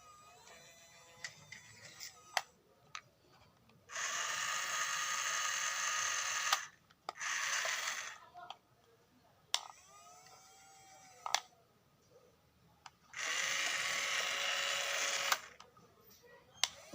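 Small electric gear motors of a wire-controlled toy wheel excavator whirring in three bursts, the longest a few seconds, with sharp plastic clicks in between.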